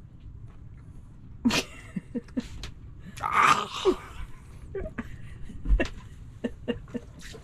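A man's short wordless vocal sounds as he bites into and eats an iced sugar cookie, with a louder breathy burst a little over three seconds in.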